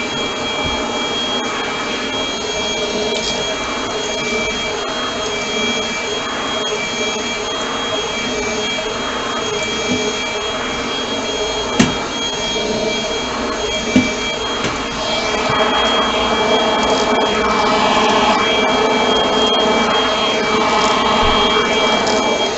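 Bush 25.2V cordless stick vacuum cleaner's DC motor running steadily with a high whine, with two sharp knocks near the middle. It grows somewhat louder and busier about two-thirds of the way through.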